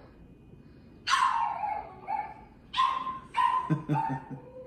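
Dogs yelping and whining: about five short, high calls starting about a second in, some falling in pitch.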